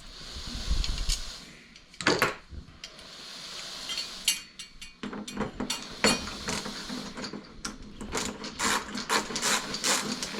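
Bolts being screwed into a TV's mounting bracket with a hand tool: a quick run of mechanical clicks through the second half, with a knock about two seconds in and another about six seconds in.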